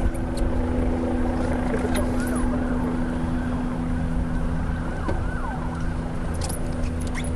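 A boat engine running at a steady idle, a constant low hum, with a few faint short chirping glides in the middle.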